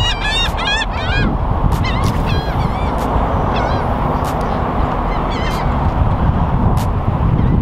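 Birds calling in quick runs of short, arching squawks, dense for about the first second and then thinning to scattered calls, over a steady low rumble.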